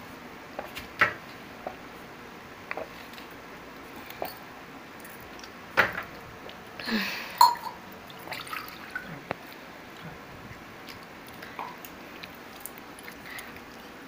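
Scattered light clicks and small knocks of things being handled, with the two loudest about six and seven and a half seconds in.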